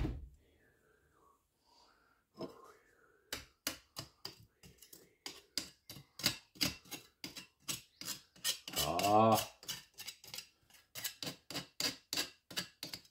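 Irregular sharp clicks and taps, a few a second, as a freshly cast brass trigger guard is taken out of its mold and handled, with a short thump at the very start.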